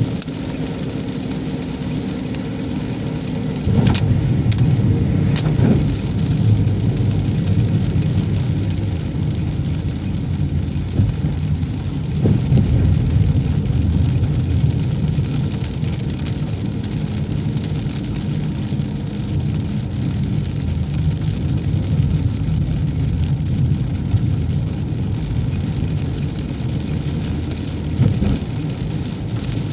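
A car driving in the rain: a steady low rumble of engine and road noise that gets louder about four seconds in, with a few brief knocks along the way.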